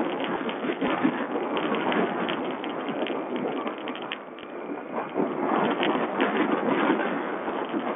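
Sherco 125 four-stroke enduro motorcycle being ridden over a rough dirt track: engine noise mixed with constant rattling, knocking and wind noise, heard through a low-quality watch-camera microphone.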